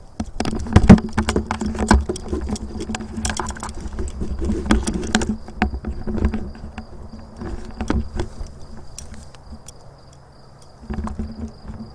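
Rustling and crackling with dull thumps, busiest in the first five seconds and again briefly near the end, over a steady high insect trill.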